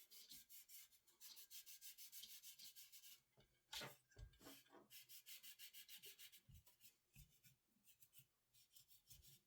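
Cotton ball rubbing quickly back and forth over a GTX 980 Ti graphics card, wiping it clean during a thermal paste repaste. It is faint, about five strokes a second, with a brief pause and a single knock about four seconds in.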